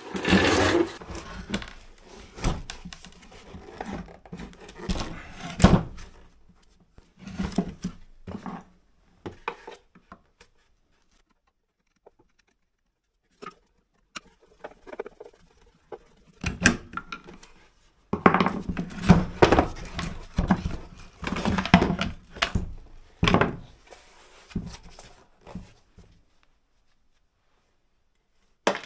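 Plastic and metal parts of a garden water pump knocking, scraping and rattling as it is handled and taken apart on a wooden workbench, with irregular knocks and a few seconds of near silence in the middle.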